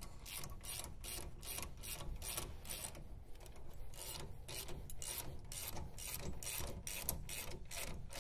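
Ratchet wrench with a socket clicking in a steady run, about three clicks a second, as a nut is run down snug on a 3/4-inch yoke bolt.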